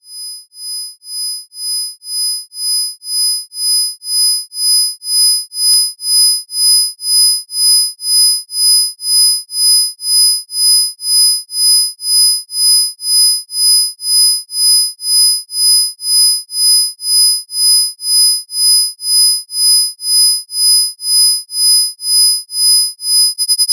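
Synthesized isochronic sine tones, loudest at about 5,000 and 10,000 Hz with fainter tones lower down. They pulse on and off about twice a second and fade in over the first several seconds. Near the end the pulsing quickens sharply.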